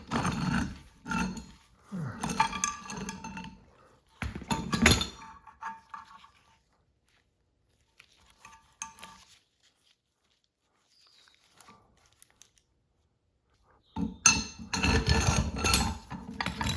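Steel bench-vise parts clinking and clanking against each other as they are handled during disassembly. Bursts of clatter in the first few seconds, near silence in the middle, then busy clanking near the end.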